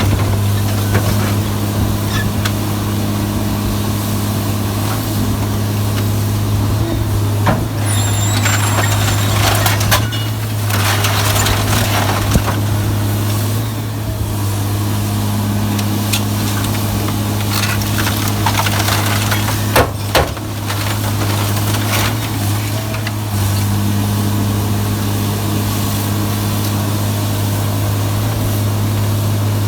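Sierra 656SL metal shear baler running, its power unit giving a steady low hum, with stretches of scrap metal grinding and crunching as it is compacted and a few sharp metal clanks about two-thirds of the way in.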